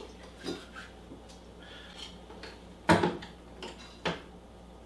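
Light clinks and knocks of glass and metal: crown bottle caps handled in a glass bowl of sanitizer while a beer bottle is filled through a bottling wand. About half a dozen clicks, with the sharpest knock about three seconds in.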